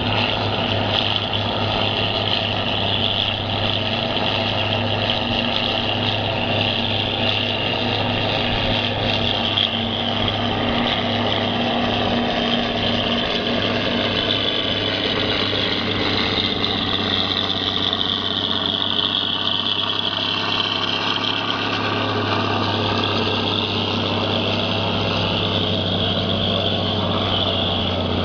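Heavy diesel engines running steadily: a John Deere self-propelled forage harvester chopping a heavy crop, with the silage trucks running alongside. A constant low hum with a high whine above it.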